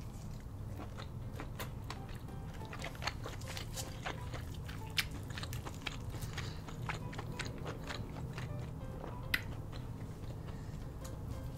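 Close-miked eating of a seafood boil: chewing and wet mouth sounds with many sharp, irregular clicks, a few louder ones standing out.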